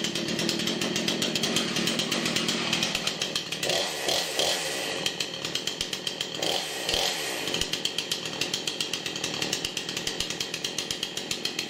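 Craftsman S205 46 cc two-stroke chainsaw engine running just after a cold start. Its speed changes briefly twice near the middle, then it runs steadily again.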